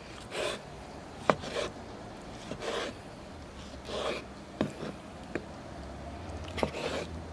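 Cooking utensils being handled: a series of short scraping strokes, about six of them, with a few sharp clicks in between.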